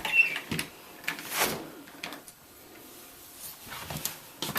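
A door being opened and closed: a brief squeak at the start, then knocks and rattles about half a second and a second and a half in, and a few more clicks near the end.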